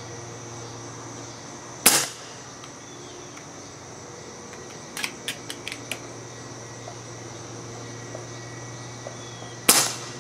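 Two shots from an FX Streamline .22 PCP air rifle with its factory shroud, at power level 2: two sharp cracks about eight seconds apart, with a run of lighter clicks between them.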